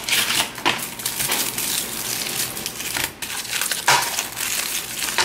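Packaging of a Lindt 70% dark chocolate bar being opened: the cardboard box is handled and the foil inner wrapper crinkles and crackles continuously, with a few sharper snaps.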